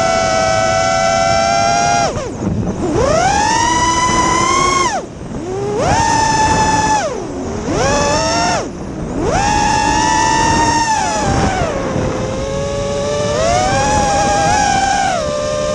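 FPV quadcopter's brushless motors whining, the pitch rising and falling with the throttle. Four times the whine drops away sharply as the throttle is cut and swoops back up as it is punched again.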